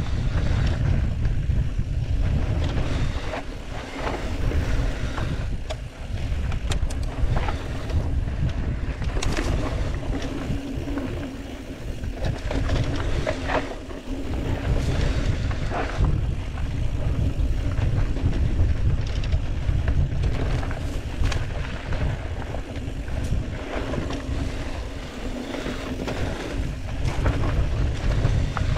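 Wind buffeting a camera microphone on a mountain bike ridden fast down rough dirt singletrack. Under it are tyre noise on dry dirt and irregular knocks and rattles from the bike over bumps.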